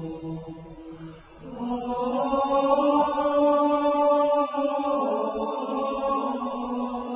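Chant-like vocal music: a long held sung note swells in about a second and a half in, steps up in pitch and later back down.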